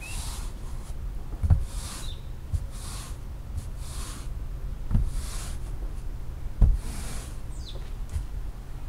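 Long-handled stiff-bristled push brush scrubbing a wet rug: a scratchy swish with each stroke, about one a second. Three dull thumps come where the brush head knocks down.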